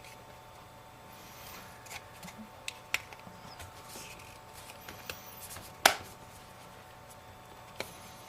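Hands handling an iPhone 5S as its screen assembly is pressed back into the aluminium casing: scattered light clicks and rubbing, with one sharp loud snap a little under six seconds in as the screen clips into place.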